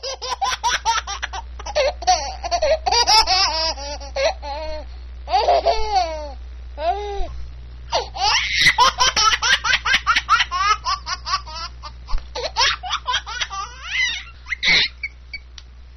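Baby laughter: quick runs of giggles and belly laughs, with short breaks between them.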